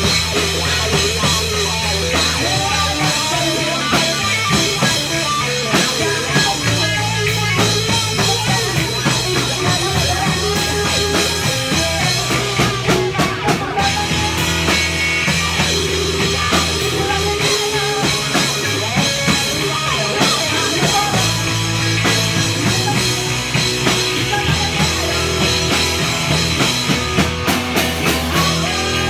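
A three-piece rock band playing live, with electric guitar, electric bass and a Tama drum kit keeping a steady beat.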